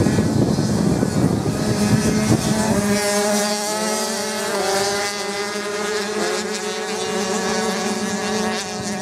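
Motocross bikes racing on a sand track, their engines held at high revs. The whine steps and glides up and down in pitch as the riders change gear.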